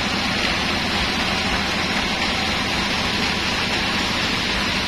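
Sawmill machinery running steadily: a continuous mechanical drone with a low rumble and a broad hiss.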